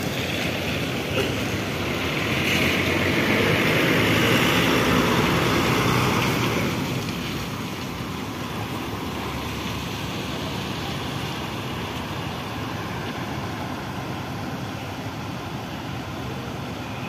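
A large vehicle, likely a bus, passes close by over a steady wash of noise. Its engine and tyres swell louder from about two to seven seconds in, then fade back to the steady background.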